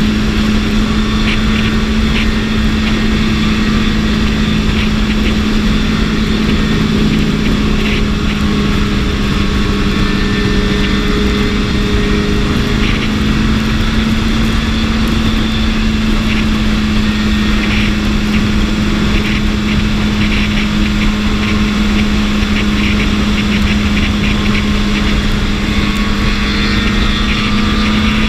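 BMW S1000RR inline-four engine running at a steady speed, its pitch holding nearly constant and rising slightly near the end, under a steady rush of wind noise.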